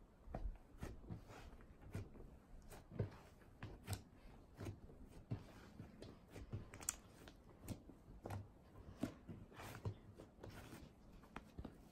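Hands kneading and folding a store-bought glitter slime with dry snow powder mixed in, making quiet, irregular squishes and little pops, about one or two a second.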